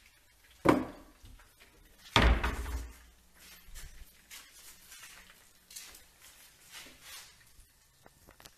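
A sharp knock, then about a second and a half later a heavier, deeper thump, followed by faint clicks and rustling.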